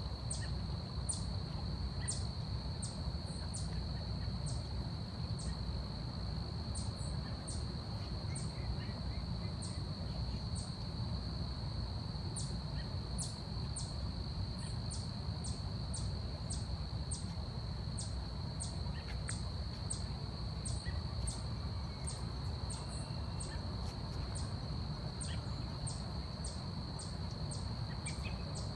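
Forest ambience: insects keep up a steady high drone, with short high chirps repeating irregularly about once or twice a second, over a constant low rumble.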